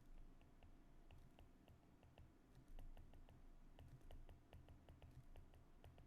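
Faint, quick light clicks, about four a second, over low room noise.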